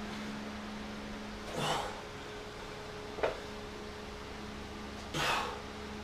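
A man breathing out hard twice, about three and a half seconds apart, from the effort of alternating lunges with a kettlebell in each hand. A single short knock falls between the two breaths, over a steady low hum.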